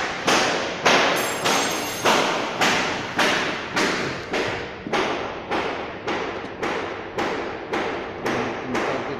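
Steady hammer blows, about three every two seconds, each ringing out briefly after the strike.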